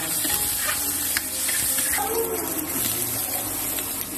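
Sliced onion and garlic sizzling in hot oil in a frying pan, a steady hiss, with a few light clicks of the spoon against the pan as they are stirred.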